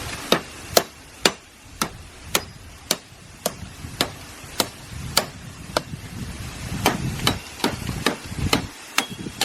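Machete chopping at wood, about two strikes a second in a steady run of sharp knocks; the machete is not very sharp.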